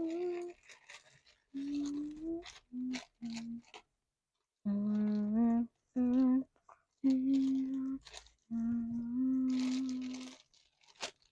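A person humming a tune in short held notes with brief pauses, with a few faint clicks between the notes.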